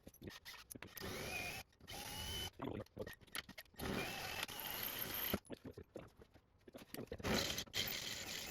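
Power drill running in about four short bursts, with clicks of handling in between, drilling out the screws that hold a car door's lock actuator assembly.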